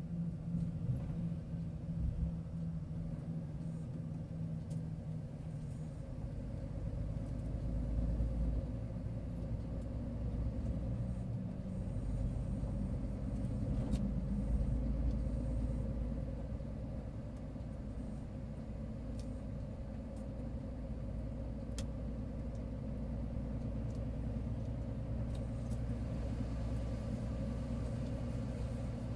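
Truck's diesel engine running with road and tyre noise, heard from inside the cab while driving; the engine note changes a couple of times as the speed varies.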